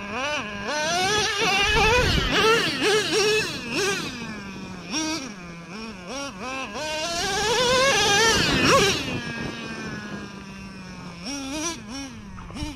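Traxxas Revo 3.3's two-stroke nitro engine revving up and down in quick throttle bursts, its whine rising and falling. It climbs to a hard rev, settles to a steady idle about nine seconds in, then revs again near the end.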